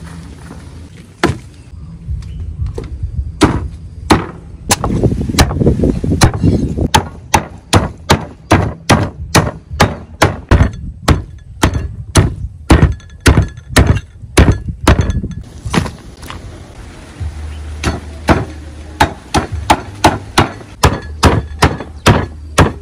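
A heavy cleaver chopping raw chicken on a thick wooden chopping block: a long run of sharp chops, about two to three a second, with a short pause before they start again.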